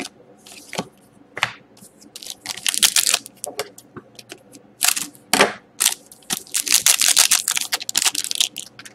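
A hockey card pack's wrapper being cut with scissors and pulled open. It makes a series of crinkling, crackling rustles, with a few sharp snips and clicks, and the longest crinkle comes as the cards are slid out near the end.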